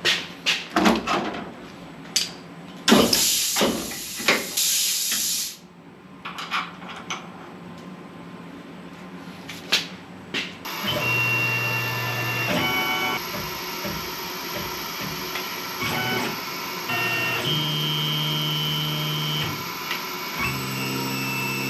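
Knocks and clicks of work at a CNC mill, with a hiss of about two and a half seconds starting about 3 s in. About 11 s in the mill starts up: a steady high spindle whine, with the stepper motors' pitched whine jumping from note to note as the axes move on the cut in the steel tool.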